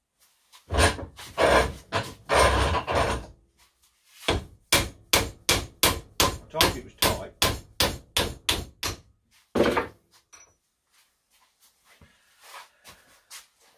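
Steel hammer striking at a bench vise to drive a tight pressed-on arbor out of a bronze gear: a few heavy blows, then a quick even run of about fifteen strikes, and one last blow about ten seconds in.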